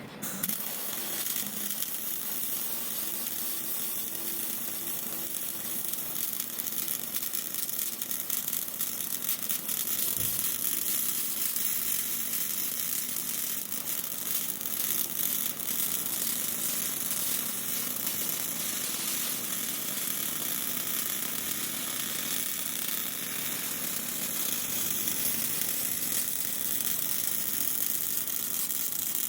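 Robotic MIG welding arc on aluminium, fed by a push-pull torch: a steady sizzling hiss that strikes up abruptly at the start and burns on without a break.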